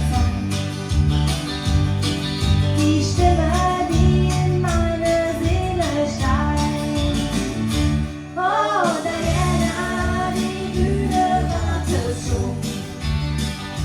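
Country song with singing over guitar, bass and a steady beat. The bass and beat drop out briefly about eight seconds in, then the band comes back in under the voice.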